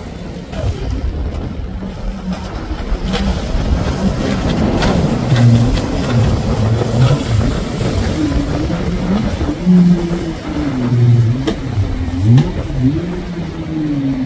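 Jet ski engine revving up and down over and over as the craft spins in tight circles throwing spray, its pitch swooping up and down every second or so from about five seconds in. Before that, mostly a noisy rush of wind and water.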